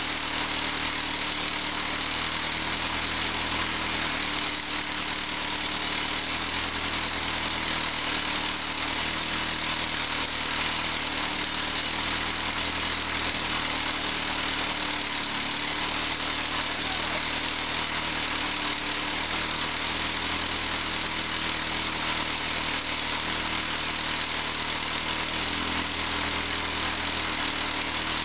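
Massey-Harris Pony's small four-cylinder Continental flathead engine idling steadily.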